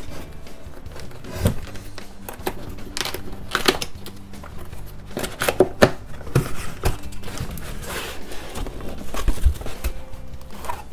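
Cardboard packaging being handled: an inner box slid and scraped against the shipping box and its end flap pulled open, with scattered sharp knocks and rustles. Background music plays underneath.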